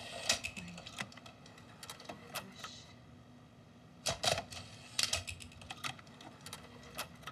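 Buttons on a VCR being pressed: a series of sharp mechanical clicks, some in quick pairs, over a faint steady hum.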